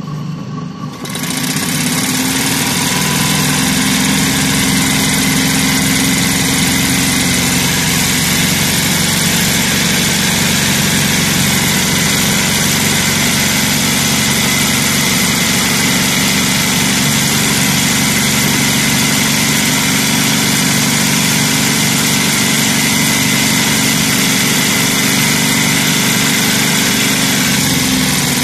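Electric sewing machine running at a steady speed as it stitches a patch onto fabric. It picks up speed about a second in and slows again near the end.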